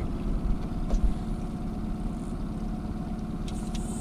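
Boat motor running steadily at idle, an even low pulsing drone. A few faint clicks and a high hiss come in near the end.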